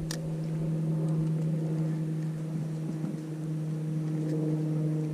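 A motor running steadily, an even low hum that does not change in pitch, with one short sharp click just after the start.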